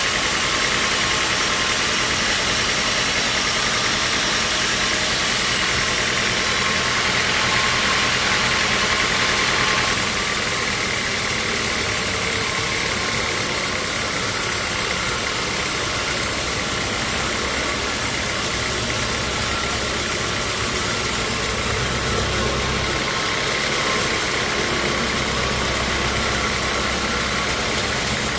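Sawmill machinery running steadily, with a constant engine-like hum under a broad hiss; the sound changes abruptly about ten seconds in, the hiss dropping.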